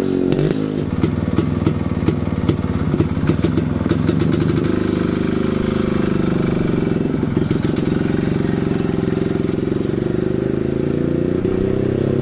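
Vintage Yezdi two-stroke motorcycle engine running, its pitch rising and falling with the throttle. The first few seconds carry a rapid clattery crackle, the middle runs steadier, and the pitch climbs again near the end.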